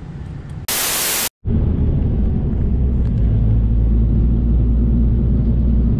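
A half-second burst of static-like hiss that cuts off abruptly, then the steady low rumble of a van driving along a road, heard from inside the vehicle.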